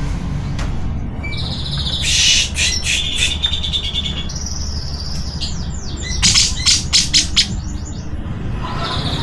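Grey-cheeked bulbul (cucak jenggot) singing: held whistled notes, down-slurred notes and fast chattering runs, the loudest run a little past halfway, over a steady low hum.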